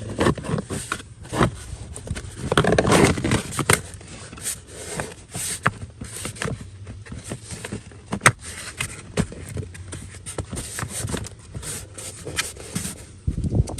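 Scraping, knocking and clicking of parts being handled and pushed back into place, after the replacement blower motor has been installed and plugged in. A rough scraping stretch about two to four seconds in is the loudest part, and separate sharp clicks follow.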